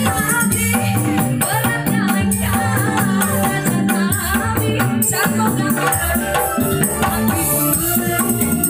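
Live dangdut band music over loudspeakers: a woman singing into a microphone over keyboard, drums and a steady bass, with a constant percussion beat.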